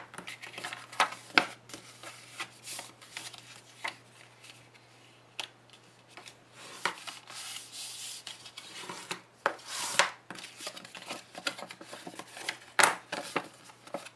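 Cardstock being folded along its score lines and creased with a bone folder: irregular paper taps, crinkles and short rubbing scrapes as the folds are burnished.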